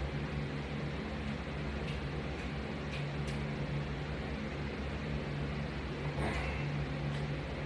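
A steady low hum, with a few faint ticks and a brief rustle about six seconds in.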